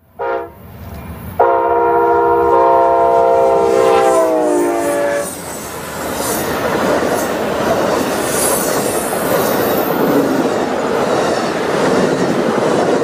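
A locomotive air horn sounds a short toot, then one long multi-note blast whose pitch drops as the train passes. Then the train runs by with a loud rush of wheels on rail and some high wheel squealing.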